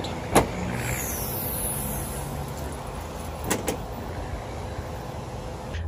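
Ford Super Duty tailgate released by its key-fob remote: a sharp latch click about half a second in, then the tailgate lowering slowly under its assist and two knocks as it comes to rest about three and a half seconds in.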